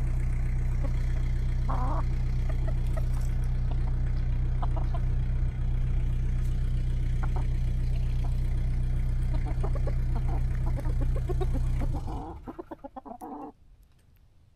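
Chickens clucking now and then as they forage, over a steady low engine drone that cuts out about twelve seconds in, followed by a short run of close, rapid clucking.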